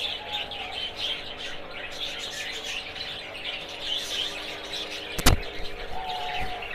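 Many small birds chirping and twittering continuously, with a single sharp click about five seconds in.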